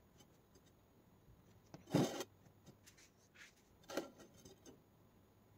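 Quiet mukbang eating and food-handling sounds: fingers picking and tearing food on a plate, with faint clicks and two short louder crackles, about two and four seconds in.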